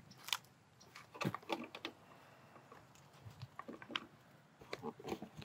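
Footsteps on packed dirt: irregular light crunches and scuffs, with a few sharper clicks and knocks from things handled while walking.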